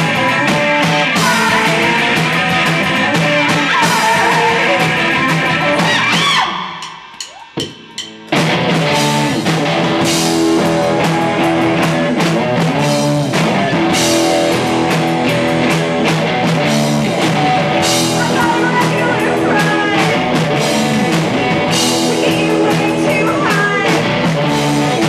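Live rock band playing loud: bass guitar, electric guitar and drum kit. About six seconds in the band drops out for about two seconds, with a few short hits, then comes back in full.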